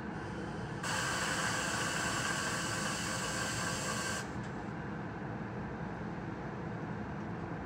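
A burst of compressed air hissing from a stopped train, lasting about three seconds, with a sudden start and stop. Under it runs a steady low rumble.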